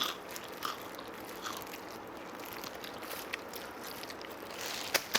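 Someone chewing crispy fried chicken close to the microphone, with a few faint crunches in the first two seconds and a run of sharper, crisp crunches near the end.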